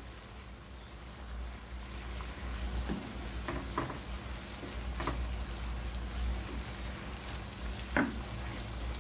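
Cuttlefish and prawns sizzling in their sauce in a pan while a wooden spatula stirs them, with a few short scrapes and clicks of the spatula against the pan.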